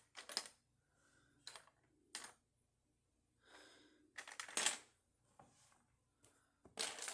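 Plastic Lego bricks clicking and clacking as they are picked up and set down, a handful of separate sharp clacks with the loudest about four and a half seconds in and again near the end.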